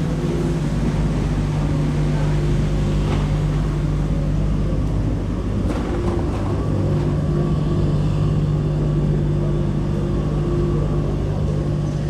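Steady low hum of running machinery with a couple of held tones, and a few faint clicks about three and six seconds in.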